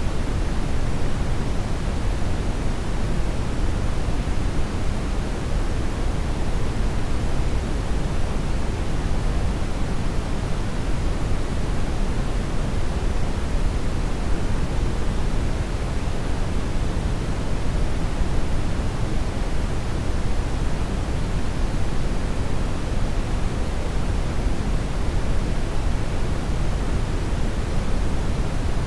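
Steady, unchanging electronically generated noise, a continuous rushing sound that is fuller in the low end than in the treble.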